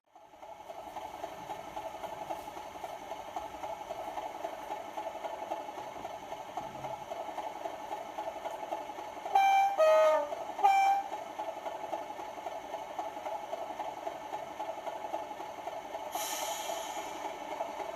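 Sound decoder of a 00 gauge model diesel locomotive playing a steady diesel engine sound through its small onboard speaker. About nine seconds in, a two-tone horn sounds three short notes, high, low, high. Near the end comes a brief hiss.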